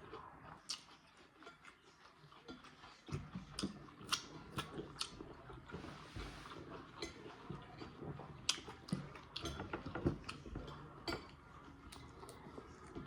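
Close-up chewing and biting of food, with scattered short wet clicks and mouth smacks.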